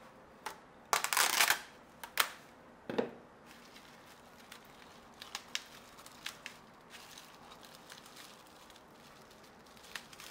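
Kitchen handling noises during food preparation. A brief crinkling rustle comes about a second in, then a couple of sharp clicks and a knock, followed by faint scattered taps.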